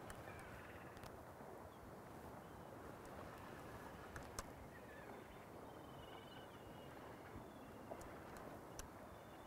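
Quiet open-air ambience with a few faint, distant bird calls and a few sharp clicks, one about four seconds in and another near the end.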